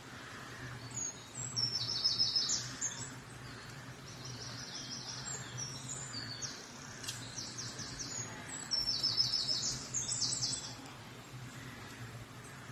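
A woodland songbird singing: quick high trilled phrases, about two seconds in, again about seven seconds in and again near nine seconds in, over a steady low background hum.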